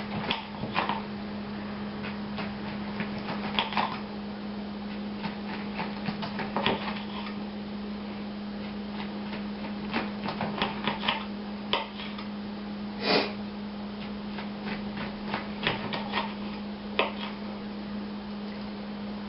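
Kitchen knife slicing an orange on a cutting board: irregular taps and clicks of the blade on the board, some in quick runs, the loudest about two-thirds of the way through. A steady low hum runs underneath.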